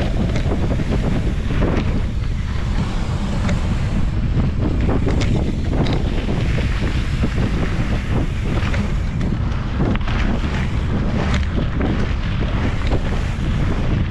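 Wind buffeting the microphone of a mountain biker's action camera at riding speed, a steady loud rumble, mixed with knobby tyres rolling over dirt and gravel and scattered clicks and knocks from the bike over the trail.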